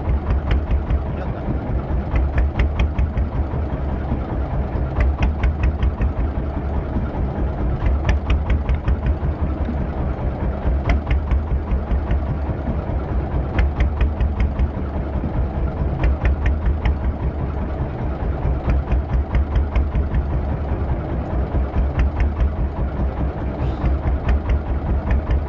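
Boat engine idling with a fast, even low beat, joined every two to three seconds by short runs of sharper ticking.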